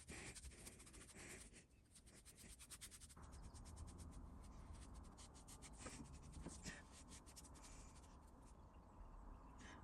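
Faint, quick scratchy strokes of a paintbrush laying smooth blue paint onto a metal vise.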